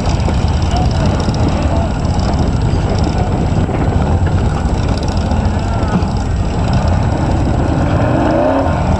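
Off-road vehicle engine running steadily, a continuous low rumble.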